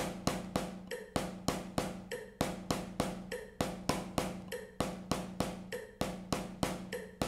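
Wooden drumsticks striking a practice pad in steady sixteenth notes, about three strokes a second, accenting the second, third and fourth note of each beat, over a metronome clicking at 50 beats per minute.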